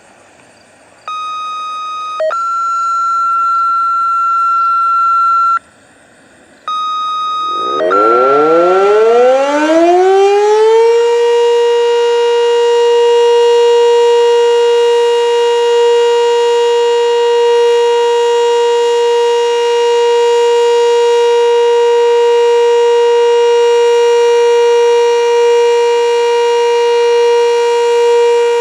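A sequence of steady electronic beep tones in two close pitches sounds on and off. About 8 seconds in, a Sentry 7V8 tornado siren winds up, rising in pitch and settling into one loud steady tone: the Alert signal of a monthly siren test.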